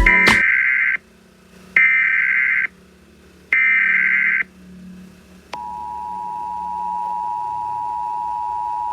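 Emergency Alert System tones. Three short bursts of warbling SAME header data, each under a second with a brief gap, then about five and a half seconds in the steady two-tone EAS attention signal starts and holds.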